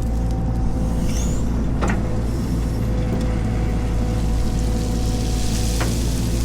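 Heavy machine's diesel engine running steadily with a deep, even hum, with two short clicks or knocks about 2 and 6 seconds in.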